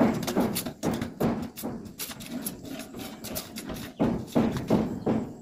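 Hand boring of a tube well: the PVC boring pipe is worked up and down in the muddy hole while a palm slaps over its open top, giving repeated knocks and slaps at about two a second.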